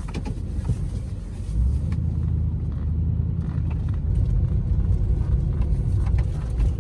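Car driving slowly over a bumpy road: a steady low rumble of engine and tyres that grows louder about a second and a half in, with a few faint rattles.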